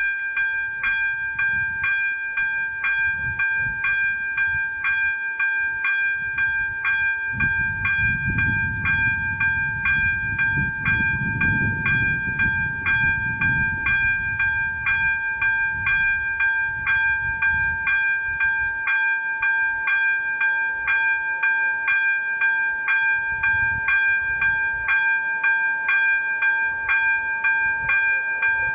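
Electronic level-crossing bell (ZV-02 e-bell) sounding its warning, a multi-tone electronic ding repeated evenly and rapidly without a break, meaning the crossing is active for an approaching train. A low rumble swells and fades in the middle.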